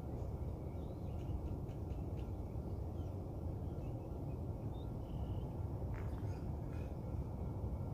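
Faint, scattered bird chirps and calls over a steady low outdoor rumble.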